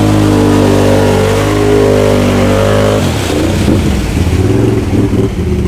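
Can-Am Outlander XMR ATV's V-twin engine revving hard under load, pushing through thick mud. It holds high revs, climbing slightly, then the throttle drops off sharply about three seconds in and it runs lower and unevenly.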